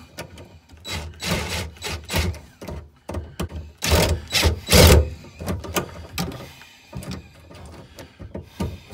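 Hand screwdriver tightening the strain-relief clamp screws on an inverter charger's AC wire entry: a run of irregular knocks and scrapes from the tool and cables against the metal chassis, loudest about four to five seconds in.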